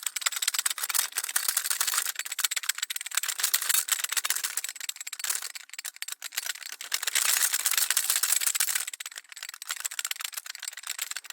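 Camera shutter clicking very rapidly in continuous burst shooting, a dense rattle of clicks that swells and eases in waves.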